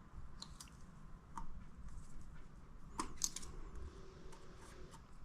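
A few faint, separate metallic clicks and scrapes of thin steel feeler gauge blades being handled and tried in an engine's valve clearance. The clearest ticks come about three seconds in.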